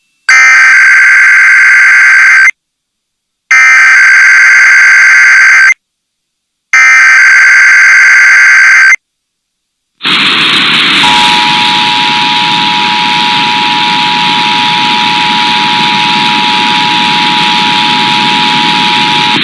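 Emergency Alert System test coming through a receiver: three identical bursts of the SAME digital header, each about two seconds long with a second's gap between, then a loud hiss under which the steady two-tone EAS attention signal starts about a second later and holds.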